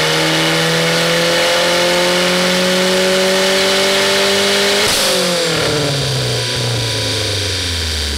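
2004 Dodge SRT-4's turbocharged 2.4-litre four-cylinder at full throttle on a chassis dyno, heard through a catless MPx exhaust. Its pitch climbs steadily for about five seconds, then a sharp crack comes as the throttle closes and the revs wind down.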